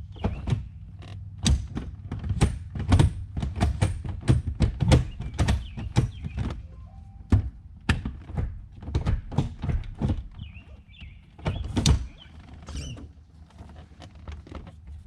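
Irregular knocks and clunks from the 4+3 manual gear shifter of a 1984 C4 Corvette as the lever is worked through the gates and into reverse. The clunks come thickest in the first half and thin out near the end.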